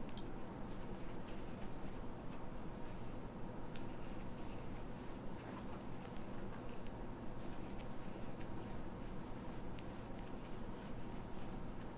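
Crochet hook working yarn in double crochet stitches: soft scratching and rustling with faint irregular clicks over a steady low hum.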